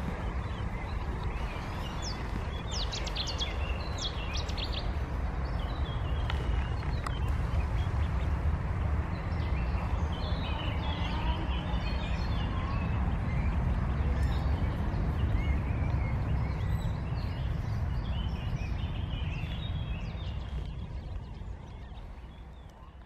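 Steady low rumble of wind on the microphone, with scattered high-pitched peeps of mallard ducklings over it. The sound fades out near the end.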